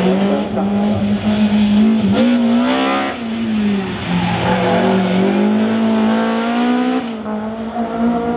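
Rally car engine at high revs, its pitch rising and falling with throttle and gear changes, with a sharp drop about three seconds in and another near seven seconds.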